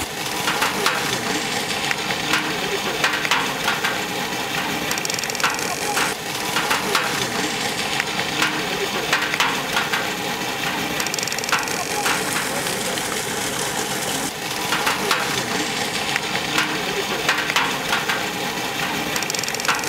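A long metal ladle stirring and scraping chicken frying in a large iron kadai: irregular scrapes and clicks of metal on metal over a steady sizzle.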